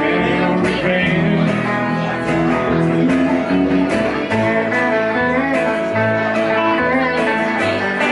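A live band playing electric guitar over a plucked upright bass line, with a second guitar.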